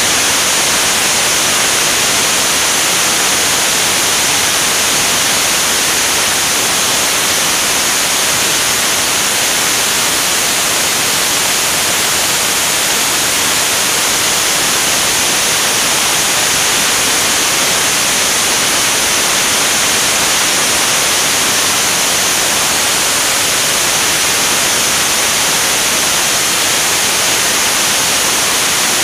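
Steady, loud rush of airflow over a wing-mounted camera in jet flight: an even, hissy wind noise that does not change.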